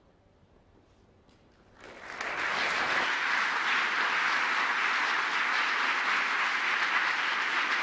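A hush for about two seconds, then audience applause starts and quickly swells to a steady level.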